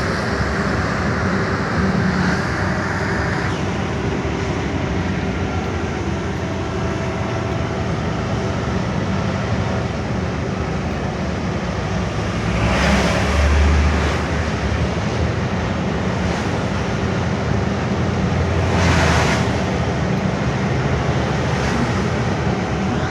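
Truck driving on a rain-soaked road, heard from inside the cab: steady engine drone with tyre and road noise, and two louder rushing swells, about halfway through and again some six seconds later.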